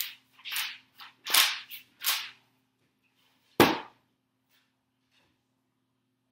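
Pages of a large book flipped fast: six quick rustling swishes, one after another. About three and a half seconds in comes one loud, sharp slap from the book on the wooden tray table.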